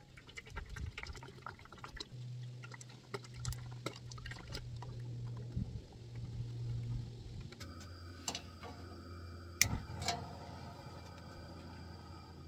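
Cooking oil poured from a jug into a metal fryer pot, a steady stream of liquid splashing into the pot and basket, followed by more poured from a second jug. About ten seconds in come several sharp clicks and knocks.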